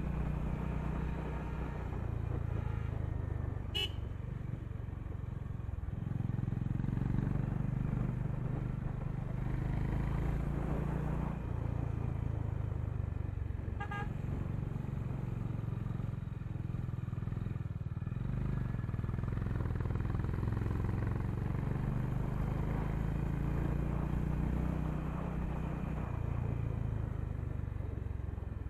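Honda H'ness CB350's air-cooled single-cylinder engine and exhaust running on the move, its pitch shifting several times with the throttle. A horn beeps briefly twice, about 4 and 14 seconds in.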